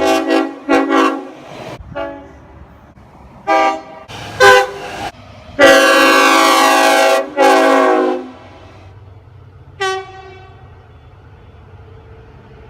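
Train horn sounded in a string of blasts: a few quick toots, two more short ones, a long blast running straight into a second, and one last short toot. A low rumble follows, as the train keeps running.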